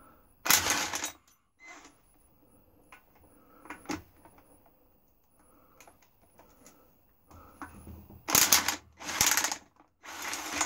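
Sealy impact wrench driving a bolt in short bursts: one burst about half a second in, then three close together near the end, with faint clicks of tools and socket handling between.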